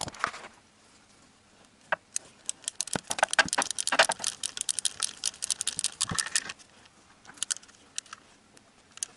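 Socket ratchet clicking rapidly as the single bolt holding an engine's inner timing belt cover is run in, with scattered metallic taps and rattles from the tools. The clicking is densest for a few seconds in the middle.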